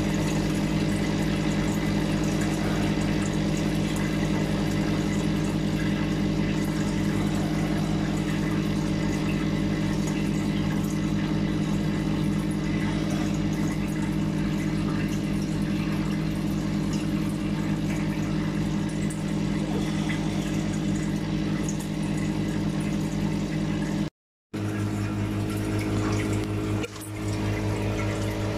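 Aquarium filter pump humming steadily while water churns and bubbles through a clear filter box. About 24 s in the sound cuts out for a moment, and the hum comes back lower in pitch.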